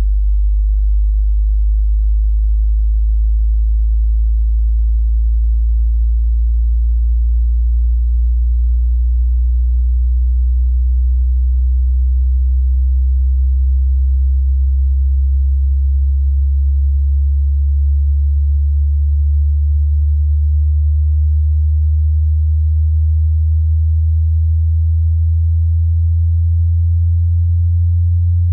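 Pure sine-wave test tone from a hearing-test frequency sweep: a very low, steady hum slowly rising in pitch.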